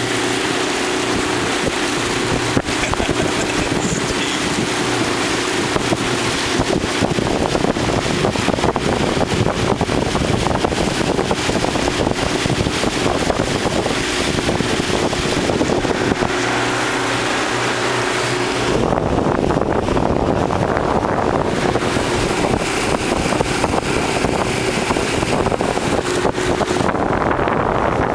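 Motorboat under way, its engine running with a steady hum, with wind noise on the microphone; the wind hiss eases about two-thirds of the way through.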